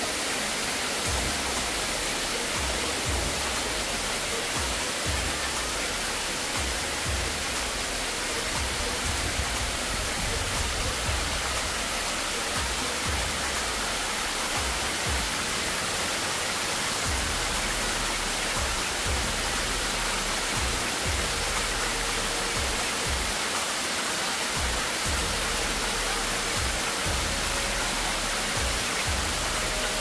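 Steady rushing hiss of a waterfall pouring down a rock face, with background music and its low bass notes underneath.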